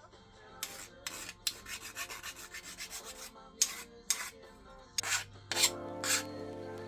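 Hand file rasping on a steel plate in quick back-and-forth strokes, about two to three a second, then a few louder, slower strokes near the end.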